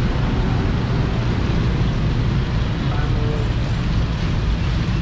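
Steady, low street traffic noise from passing motorbikes.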